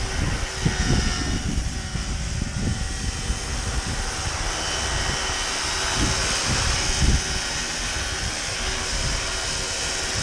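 Electric 700-size scale RC helicopter in flight: a steady motor and gear whine with rotor noise, at a head speed of about 1380 rpm. Gusty wind buffets the microphone throughout.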